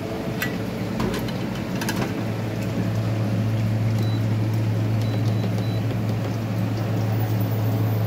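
Induction cooktop running with a steady low hum that grows stronger about two seconds in, under a pressure cooker. Short high beeps at about four and five seconds come as its control buttons are pressed, with a few light knocks in the first two seconds.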